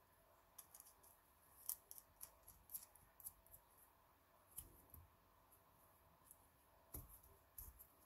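Faint, sharp metallic clicks from the steel wire picks of an Eclipse 6 lever lock picking tool as the fingers set and adjust them. The clicks come irregularly, in a busy run through the first half and a few more near the end.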